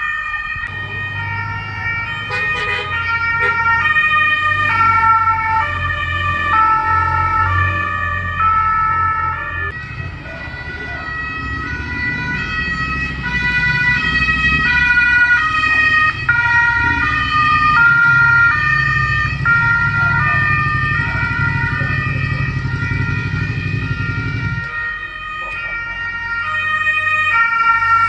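Several Croatian police cars' two-tone sirens sounding together, each stepping back and forth between two notes, out of step with one another. Under them runs a low rumble that stops abruptly near the end.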